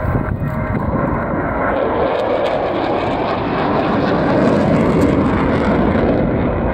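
A pair of Dassault Mirage 2000N jets, each with a single SNECMA M53 turbofan, making a steady jet roar in flight that swells slightly a few seconds in.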